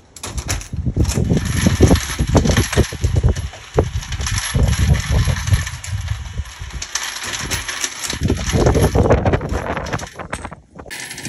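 Hornady Lock-N-Load progressive reloading press being cycled by hand: repeated handle strokes with metallic clicks and clunks as the shellplate indexes, the dies work the brass cases and the cases clink, over a steady hiss.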